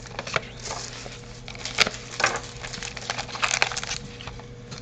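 Foil trading-card packs and a cardboard display box being handled: rustling wrappers with scattered clicks and knocks, the sharpest just under two seconds in.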